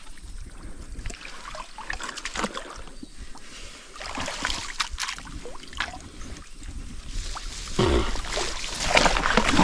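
Creek water splashing and trickling with scattered small clicks, growing louder in the last couple of seconds.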